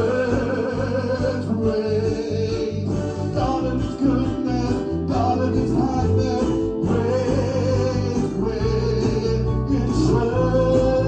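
Gospel worship song: a sung melody with long held notes over band accompaniment with a steady bass.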